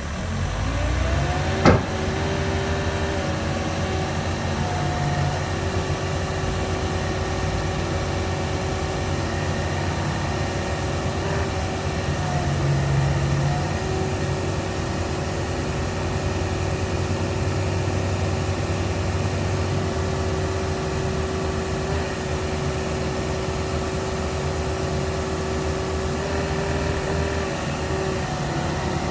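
Takeuchi TB260 excavator's diesel engine rising in revs, then running steadily with a constant whine over it. A single sharp click comes just under two seconds in.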